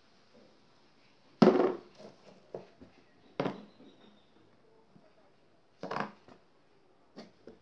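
Small filled seed-making dies knocking down onto a tabletop as they are turned upside down and pressed, about five sharp separate knocks, the first, about a second and a half in, the loudest.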